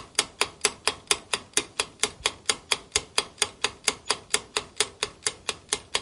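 Clock-ticking sound effect marking a quiz countdown timer, with even, sharp ticks at about four a second.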